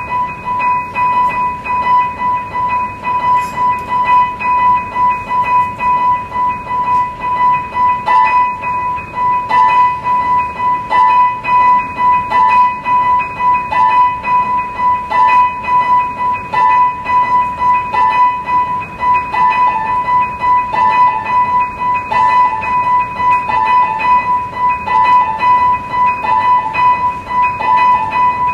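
Music: a single high tone held steady, with short notes pulsing over it several times a second.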